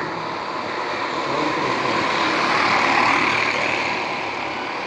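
Bicycle fitted with a toy exhaust sound gadget, ridden so it gives a buzzing, engine-like noise that swells about three seconds in and then fades.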